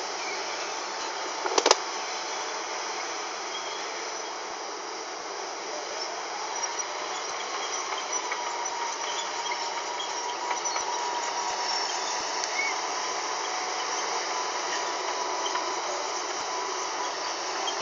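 Walking dragline's machinery running with a steady hiss. A high whine rises about six seconds in and then holds steady. There is one sharp click near two seconds in.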